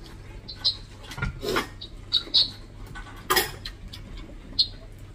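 People eating with their hands: scattered wet mouth smacks and chewing noises, with a few clicks and clinks of dishes and cutlery, the sharpest about three seconds in.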